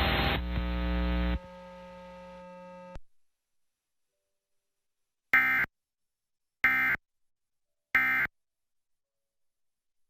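Emergency Alert System end-of-message (EOM) data tones: three short buzzy bursts of digital signalling, about a second and a quarter apart, marking the end of the alert test. Before them, loud broadcast audio for the first second or so, then a faint steady tone that cuts off about three seconds in.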